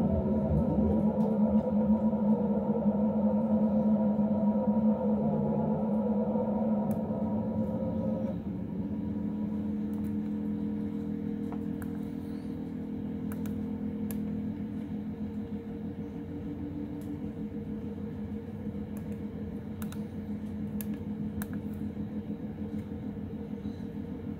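SOMA Rumble of Ancient Times drone synthesizer playing a low, sustained chord of droning tones, with a short falling sweep near the start. About eight seconds in the drone drops in level and shifts to a new steady chord, with occasional faint clicks.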